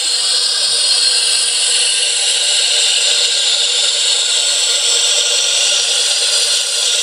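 Recorded start-up of a Fairchild Metroliner's Garrett TPE331 turboprop, the first engine running with a steady hissing whine. It is played from an MP3 player through small PC speakers sitting inside a model's hollow fuselage tube, which serves as a bass cannon.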